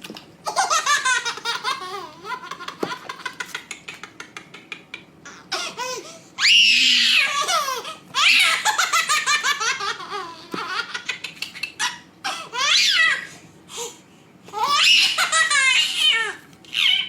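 A baby laughing in repeated fits: a long run of quick giggling pulses, then several loud, high-pitched squealing laughs with short pauses between them.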